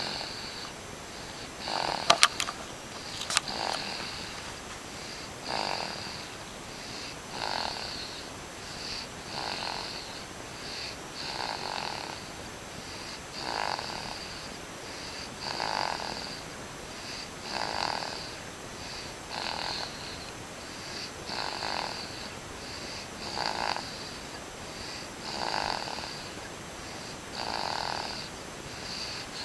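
Snoring: steady, even breaths about one every two seconds. A few sharp clicks near the start stand out as the loudest sounds.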